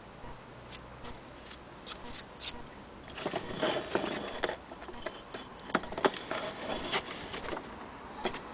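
Glass lamp chimneys, shades and paper packing being handled: a few scattered light clicks, then a busy run of clicks and taps from about three seconds in, thinning out near the end.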